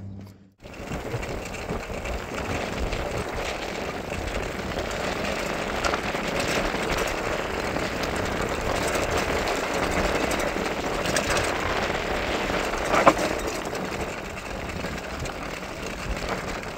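Steady rushing wind and tyre noise from a bicycle riding down a road, with one short sharp sound about thirteen seconds in.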